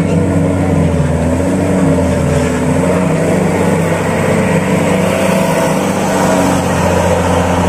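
Large diesel bus engine labouring under load as the bus climbs a steep unpaved hill and passes close by. It is a steady low drone with the revs held fairly constant and wavering slightly.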